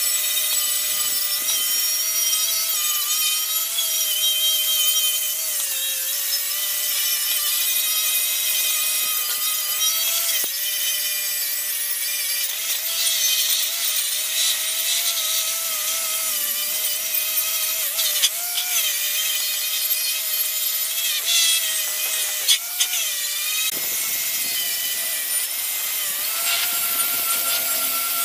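Makita angle grinder spinning a wire wheel brush against rusted sheet steel: a steady motor whine over a harsh hissing scrape as the wire strips rust and paint, the whine wavering slightly in pitch as the brush is pressed on and eased off.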